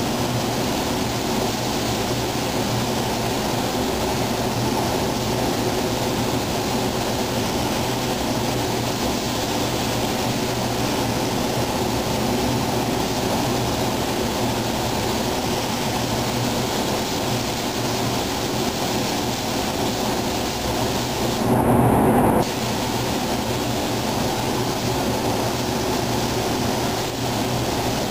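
Steady rushing hiss of compressed air through a gravity-feed automotive spray gun as paint is sprayed onto a car body, over the constant air noise of the paint booth. About three-quarters of the way through, it swells louder for about a second.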